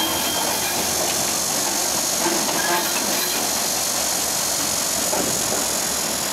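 GM EMD G16 diesel-electric locomotive running as it passes slowly, a steady engine rumble with a loud steady hiss over it.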